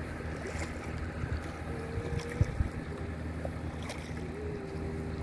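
Wind buffeting the microphone and water lapping around an inflatable boat as it is paddled, with two sharp knocks about halfway through.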